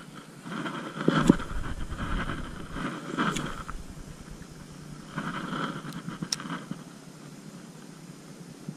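Spinning reel being cranked in several short bursts, with a few sharp clicks, as a lure is cast and retrieved.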